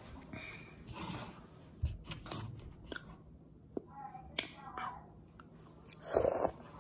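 A person eating instant ramen noodles off a plastic fork close to the microphone: chewing and mouth sounds with a few sharp clicks, and a louder burst about six seconds in as a forkful of noodles goes into the mouth.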